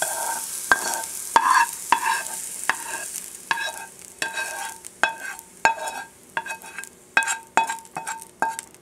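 Metal spoon scraping and tapping against a nonstick frying pan and a ceramic bowl, about two or three short ringing taps a second, while sautéed diced carrot, onion and celery are spooned out. A light sizzle from the hot pan fades away over the first few seconds.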